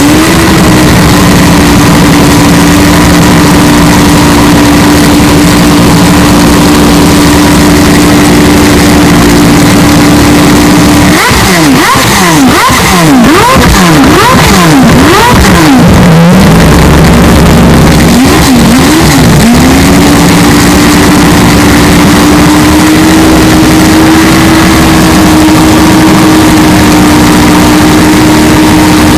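Mazda 767B race car's four-rotor rotary engine held at steady high revs, then blipped up and down rapidly for about five seconds. It then drops to a lower idle with a couple of short blips and settles again at steady high revs near the end. The recording is extremely loud and overdriven.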